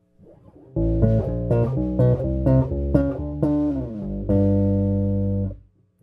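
Electric bass guitar played through a Carvin BX700 bass amp head with its graphic EQ switched in. After a faint start, a loud run of quick notes begins about a second in and ends on a long held low note that cuts off near the end.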